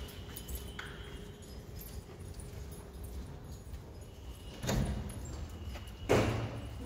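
Wooden door and its metal bolt knocking and rattling twice near the end, the second knock louder, over low rumbling from the handheld microphone.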